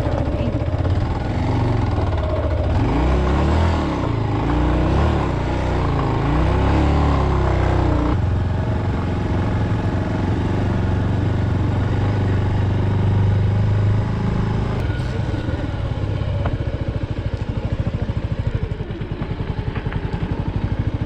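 Motorcycle engine running as the bike rides up a rough dirt road, its note rising and falling over the first several seconds and then holding steady.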